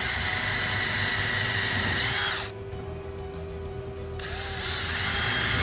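DeWalt cordless drill running at the screw holes of a steel hinge on a wooden sash, with a steady whine. It runs in two spurts: the first stops about two and a half seconds in, and the second starts again about four seconds in.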